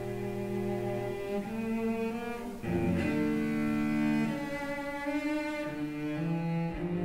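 Background music: a slow piece for bowed strings, with long held low notes that change every second or two.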